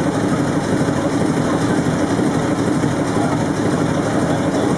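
Large old multi-cylinder marine diesel engine running steadily, an even, unchanging mechanical sound.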